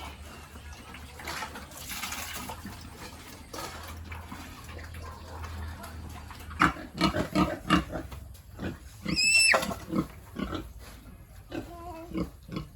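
Pigs grunting in a quick run of short grunts from about halfway, then one high squeal lasting under a second, followed by a few more short grunts near the end.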